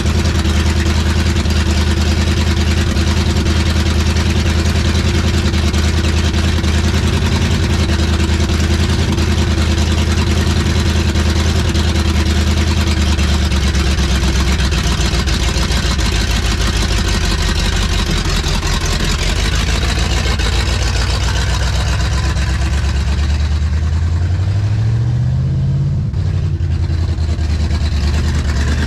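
Car engine running at a steady idle, with a brief rise in engine speed near the end that drops back to idle.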